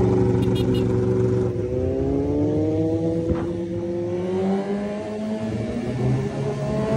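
Motorcycle engine running under way. It holds a steady note, then rises slowly in pitch from about a second and a half in as the bike accelerates.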